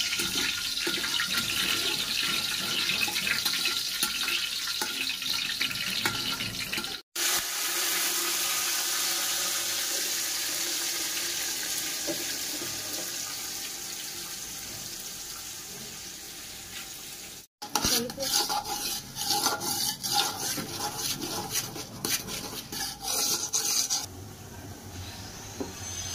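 Cooking sounds in three short cuts. First a ladle is stirred in a large aluminium pot over a steady hiss. About seven seconds in, water runs while rice is washed by hand in a pot, the hiss slowly fading. Near two-thirds of the way through comes a run of quick clinks and scrapes of metal utensils.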